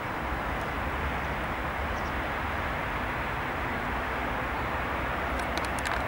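ATR 72-600's Pratt & Whitney PW127 turboprop engines running at taxi power, heard as a steady drone with a low rumble across the airfield. A few sharp clicks near the end.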